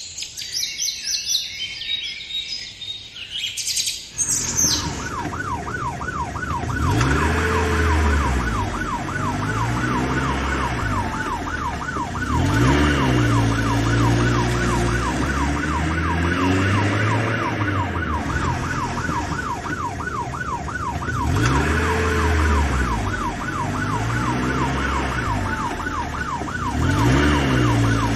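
Birds chirping for the first few seconds. Then a fast-warbling siren starts and runs steadily, over a low sound that swells and repeats every few seconds.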